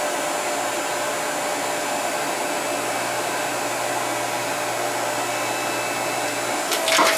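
Electric motor and hydraulic pump of a 5-ton electric log splitter running steadily under load as the ram drives a log against the wedge. Near the end the motor stops and a short, loud burst of cracks and knocks follows as the wood gives way.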